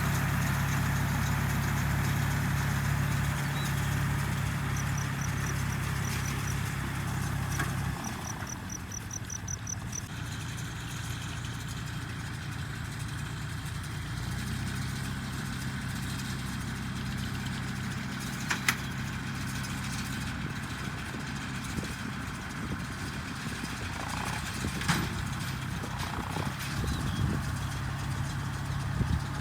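A motor running steadily with a low, even hum. It drops away about 8 s in and comes back stronger about 14 s in, with a few sharp clicks near the end.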